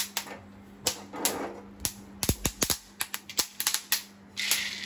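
Dry field beans (kadve vaal) popping and crackling in a hot aluminium kadhai with sharp, irregular pops, the sign that the beans are roasted through. A little after four seconds, a brief rush as the roasted beans slide out of the pan onto a steel plate.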